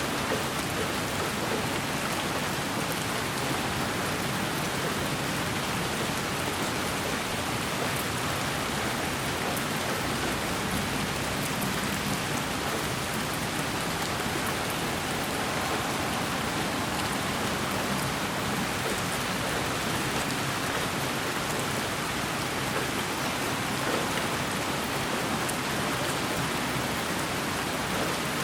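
Steady white-noise hiss with a rain-like sound, even and unchanging, with faint scattered ticks like raindrops.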